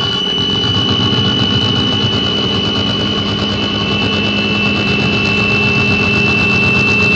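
Noise music: a dense, steady, engine-like drone with a sustained high tone over a low hum.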